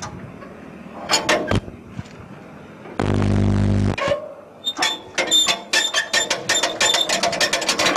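Rapid metallic clicking and clatter as the 2-cylinder Petter PH2 diesel of a 1976 Benford dumper is hand-cranked with its starting handle, a first start attempt after standing a long time. About three seconds in, a steady buzz sounds for about a second and stops abruptly.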